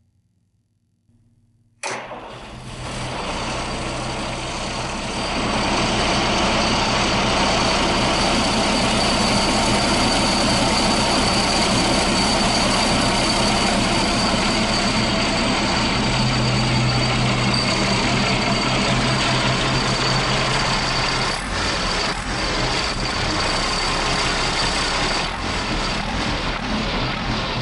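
Rebuilt diesel engine starting up about two seconds in, then running steadily, with its turbocharger not yet connected.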